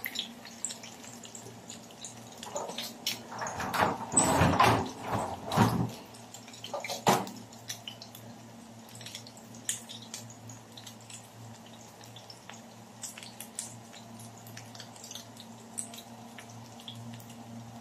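Tortang dulong, small-fish fritters bound with egg and flour, shallow-frying in hot oil, sizzling with scattered crackles and pops. There is a louder, denser stretch of noise between about three and six seconds in, and a faint steady low hum runs underneath.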